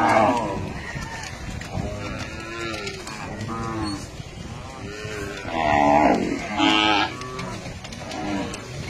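A herd of cattle mooing: many overlapping calls one after another, with the loudest just after the start and around six to seven seconds in.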